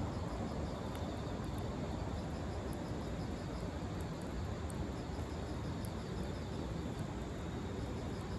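Steady low rumbling noise with faint, rapidly repeating insect chirps on top and a few small ticks.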